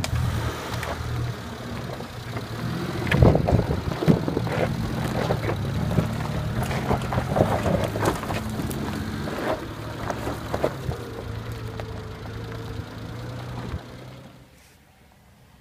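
Isuzu Rodeo's engine running under load as the SUV claws up a loose, frozen sand slope, with its tyres spinning. Sharp crackles and knocks of dirt and stones come from under the wheels. The sound drops away to quiet about a second before the end.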